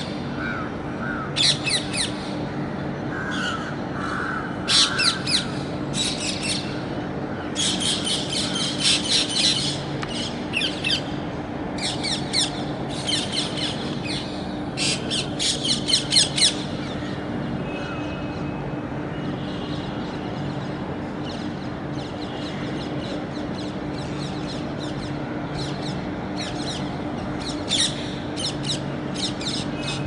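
A group of rose-ringed parakeets squawking: harsh, screechy calls in quick bursts, thick and loud through the first half, then sparser and softer.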